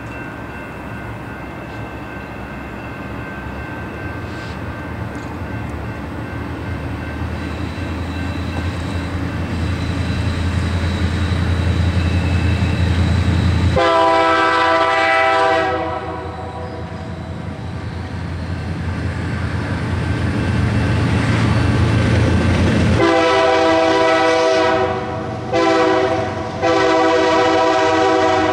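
Union Pacific diesel locomotive approaching, its engine rumble growing steadily louder, then its multi-note air horn sounding as it passes. There is a long blast about halfway through, then near the end a long, a short and a long blast, the grade-crossing signal. Freight cars roll by under the horn.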